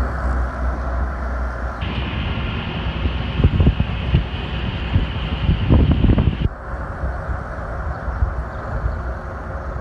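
Traffic and road noise heard from an open convertible, with wind buffeting the microphone. The sound changes abruptly about two seconds in and again about six and a half seconds in, with louder low rumbles around three and a half and six seconds.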